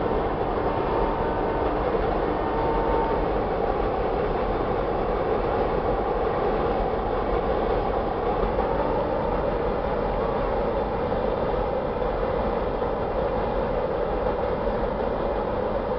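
Freight train rolling across a railway bridge: the steady, unbroken noise of its wagons running over the rails.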